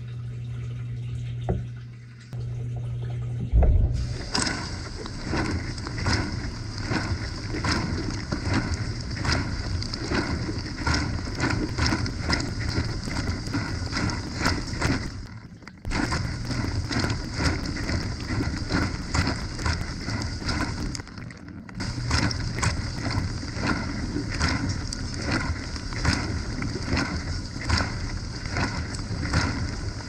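Whirlpool dishwasher running its wash cycle, heard from inside the tub. A steady low hum comes first; about three and a half seconds in, a thump starts the spray, and water from the spray arms hits the dishes and the camera in rapid, dense beats. The spray drops out briefly twice, around halfway and about two-thirds through.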